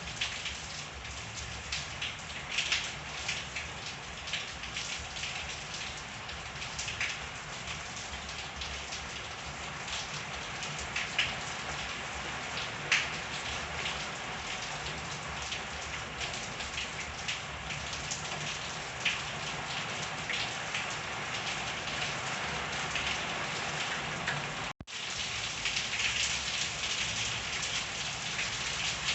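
Steady rain falling on a backyard, with scattered sharp drops striking close by. The sound cuts out for an instant near the end, then carries on.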